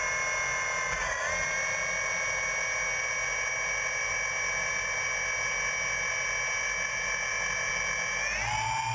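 DJI Phantom quadcopter's motors and propellers spinning with a steady high whine while it sits on the ground, rising in pitch near the end as it throttles up to lift off.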